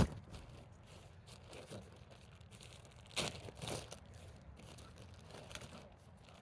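Compost being poured and spread by hand over a raised garden bed: faint rustling and crinkling, with a sharp knock right at the start and two louder rustles a little past three seconds in.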